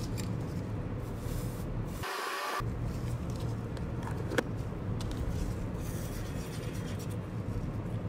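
Soft rubbing and rustling as gold foil flakes are handled out of a plastic jar into a paper cup of mixed epoxy resin and stirred in with a wooden stick, over a steady low hum. The hum drops out briefly about two seconds in, and there is one small click about four seconds in.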